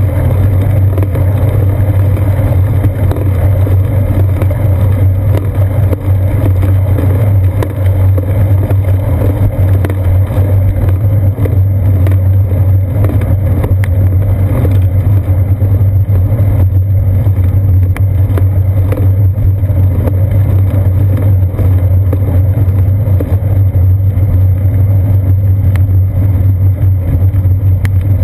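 Steady low rumble of wind buffeting and road vibration, picked up by a GoPro Hero 2 mounted on a moving bicycle's seat post.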